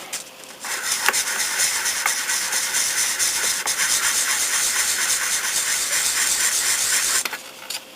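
600-grit sandpaper rubbing on a plastic model car body in quick, continuous strokes: a steady, fine scratchy hiss that starts just after the beginning and stops about a second before the end.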